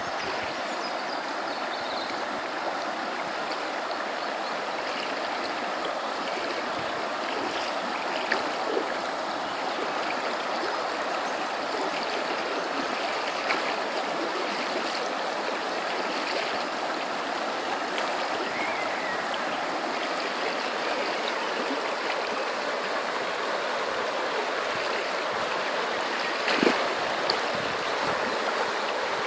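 Shallow river rushing and gurgling over stones in a riffle, a steady, even sound, with a few faint clicks near the end.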